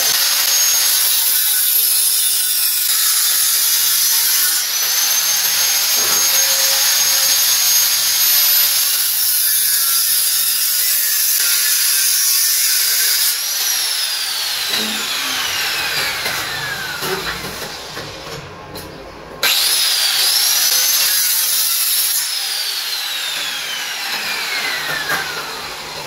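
Angle grinder cutting metal, a loud high-pitched whine. About halfway through it is let off and winds down with a falling pitch; it is switched on again, spins up with a rising pitch, and winds down once more near the end.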